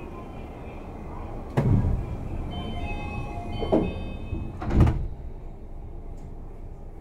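Tama Toshi Monorail 1000-series car's sliding doors closing at a station: a short door chime sounds and the doors shut with three thuds, the last the loudest, over the train's steady hum.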